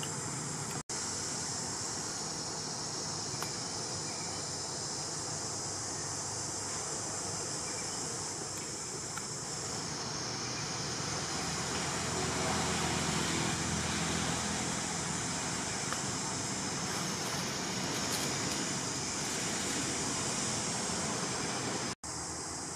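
Steady outdoor forest ambience dominated by a continuous high insect drone. The sound cuts out for an instant twice, about a second in and near the end.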